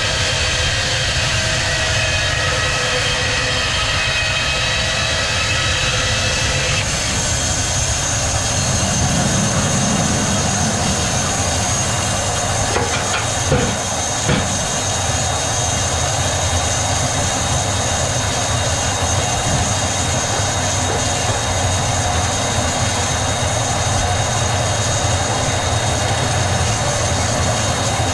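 Sawmill machinery running loudly and steadily. About seven seconds in, a high steady whine comes in, and two sharp knocks sound near the middle.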